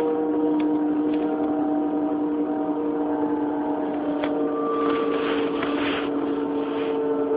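Onboard running sound of an Odakyu 1000 series electric train, heard from motor car DeHa 1101 with its Mitsubishi GTO-thyristor VVVF inverter and traction motors: a steady hum of several held tones over wheel and rail noise, with a few clicks about four to six seconds in. Recorded through a mobile phone, so the sound is rough and thin.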